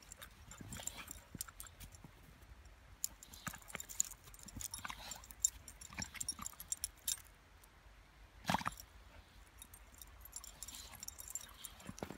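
A golden retriever and a Groenendael play-fighting in snow: irregular crunching and scuffling from paws and bodies in the snow, with the light jingle of metal collar tags. One louder short noise comes a little past two-thirds of the way through.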